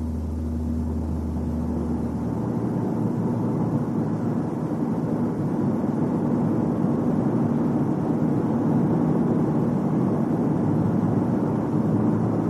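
Car driving, its running noise steady and dense and growing gradually louder as it gathers speed on a test drive to find where a booming noise appears.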